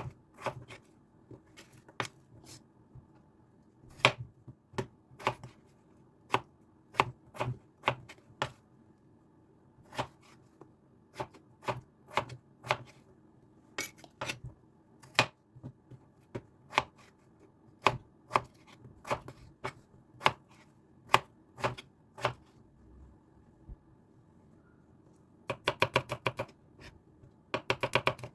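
Knife chopping food on a cutting board: single sharp knocks about one or two a second, then two quick runs of fast chopping near the end.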